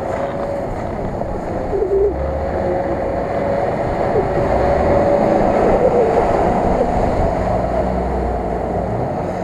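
Nissan Patrol 4x4's engine working under load as it ploughs through deep mud, with tyres churning and throwing mud. It gets louder as the truck comes close and passes, loudest a little past the middle.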